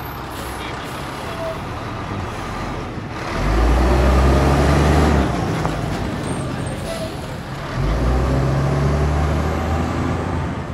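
Diesel engine of a fire department tower ladder truck driving slowly past, its low rumble swelling about three seconds in and again near eight seconds in.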